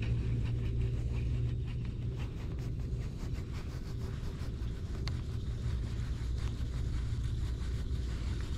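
Steady low hum of a bass boat's motor running, with faint quick ticks above it.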